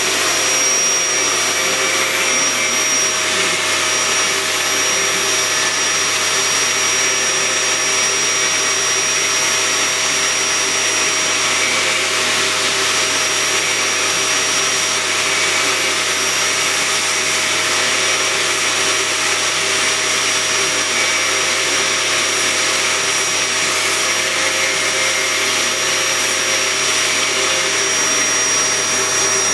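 Vacuum cleaner running steadily with a constant whine, an angle grinder also running in the background.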